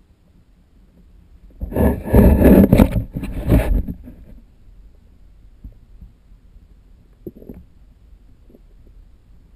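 Muffled underwater rumbling and knocking from a waterproof camera housing being handled and moved through the water, loud for about two seconds early on and then dying back to a low rumble with a few faint taps.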